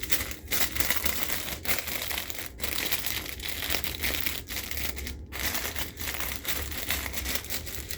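Continuous crinkling and rustling of plastic being handled, with many short breaks.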